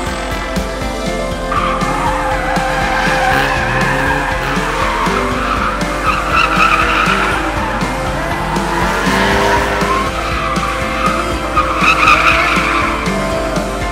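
Drift car sliding with its tyres squealing and its engine revving, the squeal loudest in two surges about six and twelve seconds in.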